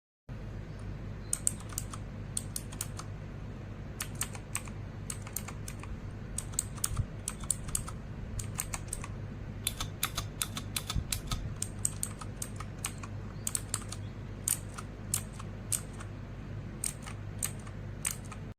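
Outemu mechanical keyboard switches being typed on: irregular sharp key clicks, singly and in quick runs, over a low steady hum.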